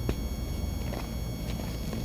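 Dry reformed cornstarch blocks being crumbled, giving a few sharp, gritty crunches over a steady electrical buzz and hum.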